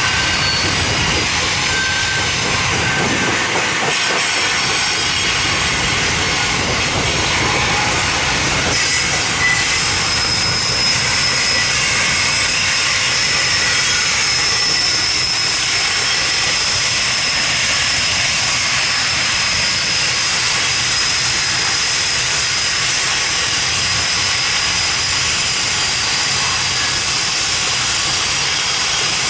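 Loaded grain hopper wagons rolling past in a steady, continuous noise, with thin high-pitched wheel squeal on top. The squeal settles into one steady tone from about a third of the way in.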